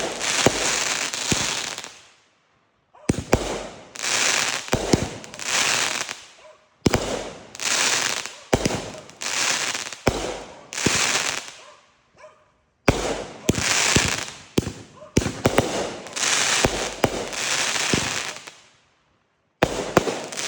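Fireworks going off: repeated sharp bangs, each followed by a second or two of hissing crackle, in bursts broken by short silences.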